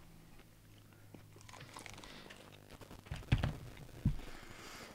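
Someone chewing and biting into sauced chicken wings, with small wet clicks, and two dull thumps about three and four seconds in.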